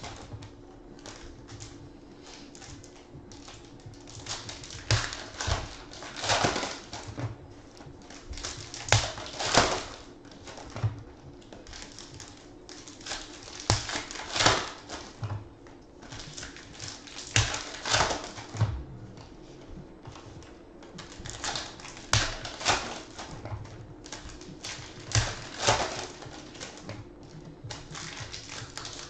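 Foil trading-card pack wrappers crinkling and tearing in the hands in irregular bursts, over a faint steady hum.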